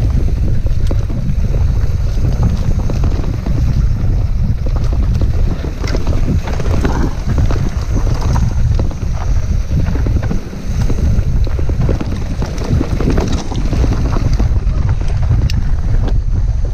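Wind buffeting the camera's microphone on a mountain bike descending a rough dirt trail: a steady, loud low rumble, with many small clicks and rattles from the bike and tyres running over the ground.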